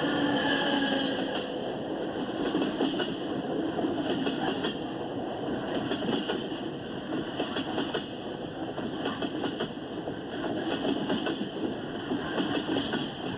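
Freight train rolling on the rails, its wheels and cars rattling and clattering steadily with many small clicks and clanks.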